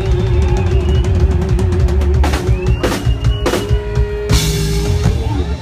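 Live rock band playing amplified through a PA, with a long held note over the drum kit. Near the middle comes a run of four hard drum-and-cymbal accents, and the last one leaves a ringing chord, as at the end of a song.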